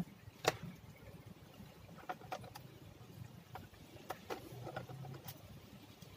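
Scattered small clicks and taps of a screwdriver working the screws of a laptop's plastic bottom case, coming irregularly, about nine in all.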